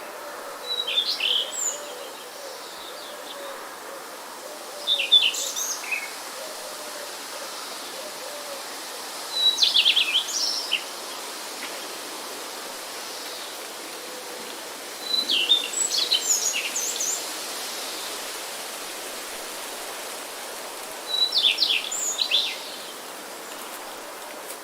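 A songbird singing a short chirping phrase five times, about every five seconds, over a steady background hiss.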